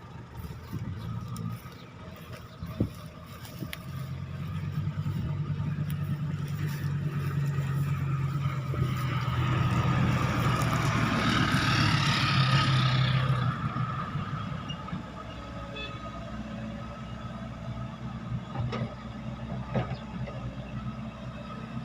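A heavy diesel engine running. It grows louder over the first half, is loudest with a rushing noise about ten to thirteen seconds in, then eases back to a steady run, with a few sharp clanks.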